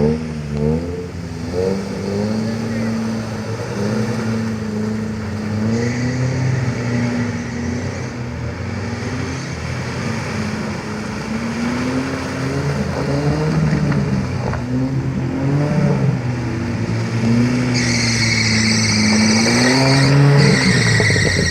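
Off-road 4x4 engine revving up and down over and over, as in drifting on loose ground. A high-pitched noise joins in for the last few seconds.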